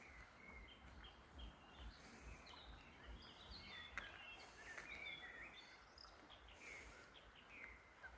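Faint chirping of small birds: many short calls and quick falling notes, over a low, even background hiss.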